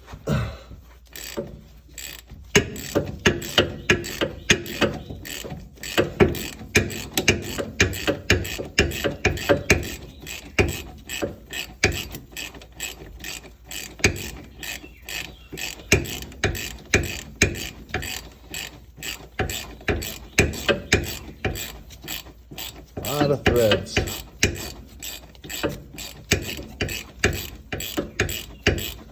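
Half-inch-drive ratchet clicking in quick repeated runs as it backs out a long-threaded wheel hub bolt (E14 inverted Torx) that has broken loose.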